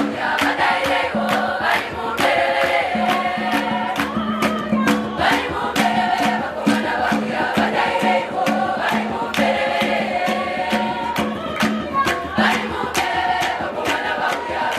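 Large girls' choir singing a Zimbabwean medley in several-part harmony, over a steady beat of sharp percussive strikes about two to three a second.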